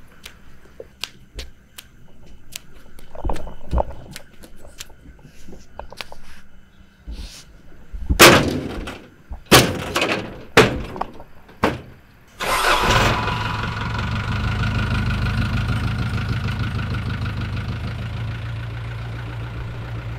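Footsteps, then several loud knocks and thumps as someone climbs the metal rear steps of a songthaew pickup-truck bus. About twelve seconds in the truck's engine starts and runs steadily, slowly getting quieter near the end.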